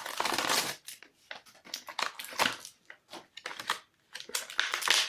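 Crinkling and crackling of toy packaging, plastic and cardboard, handled in irregular bursts as an action figure is taken out.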